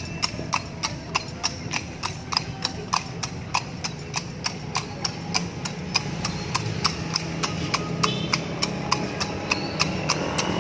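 Carriage horse's shod hooves clip-clopping on a paved street in a steady, even rhythm of about four to five strikes a second, over a low steady rumble.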